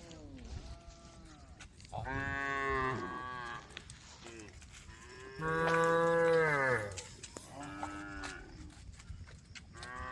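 Cows mooing, calling to the herd: about four long moos, each dropping in pitch as it ends, the loudest and longest about five and a half seconds in.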